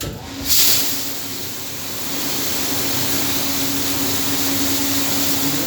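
Water from a kitchen tap turned on and running in a steady rushing hiss, with a surge of spray about half a second in and a faint steady hum under it.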